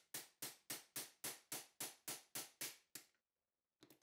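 A hammer rapidly tapping a pin punch held against a metal doll-crib rail, about four blows a second, each with a short metallic ring. The blows stop about three seconds in, and one more strike lands near the end.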